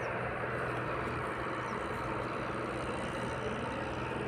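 A steady, unchanging engine hum, like a motor idling, over outdoor background noise.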